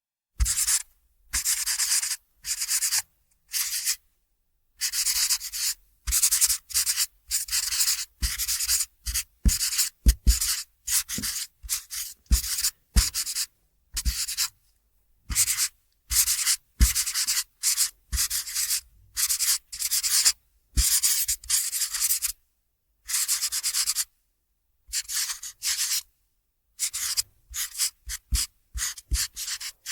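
Felt-tip marker squeaking and scratching across paper in many short strokes, a fraction of a second to about a second each, separated by brief silences, with a light tap as the tip touches down.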